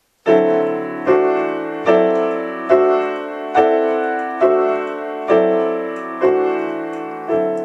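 Grand piano playing a slow series of nine chords, about one a second, each struck and left to ring. The chords are dominant pentatonic voicings in D, each note moving up to the next note of the scale from chord to chord.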